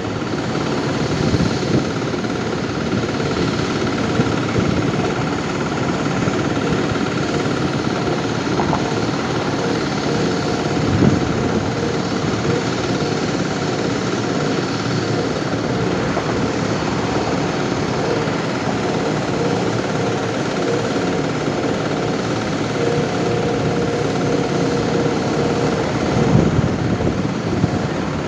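Steady engine drone from machinery, with wind rushing over the microphone.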